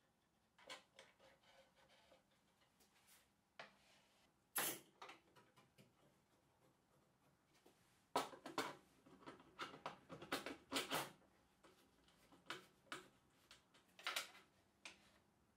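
Sparse light clicks and knocks of a plywood router tabletop, its wooden fence and clamps being handled and set down on a metal table saw top, thickest in a cluster about eight to eleven seconds in.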